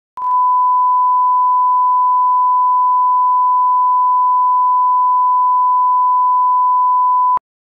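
Broadcast line-up tone played with colour bars: a single steady one-kilohertz sine tone, held for about seven seconds and then cut off abruptly near the end.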